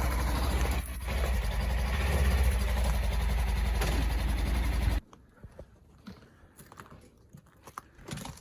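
Polaris Ranger 1000 side-by-side's engine idling steadily, cutting off abruptly about five seconds in. Faint scattered clicks and taps follow.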